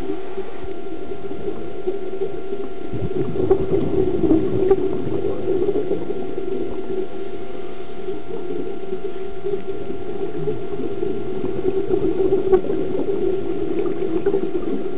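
Underwater sound picked up through a camera housing: a steady low hum, with bubbling gurgles from a diver's scuba regulator exhaust twice, a few seconds in and again near the end.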